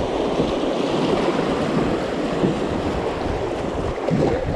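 River rapids rushing and splashing around a canoe as it is paddled through whitewater, a steady roar of water.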